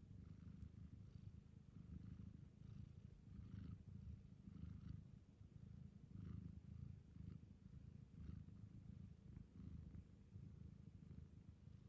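A cat purring softly, the low purr swelling and fading with each breath about once a second.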